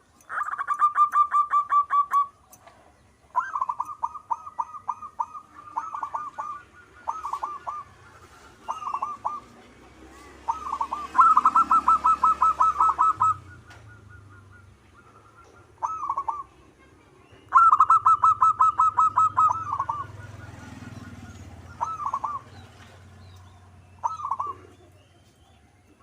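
Zebra doves singing: bouts of rapid, staccato cooing notes, some short phrases and some longer runs of about two seconds, repeated with pauses between them.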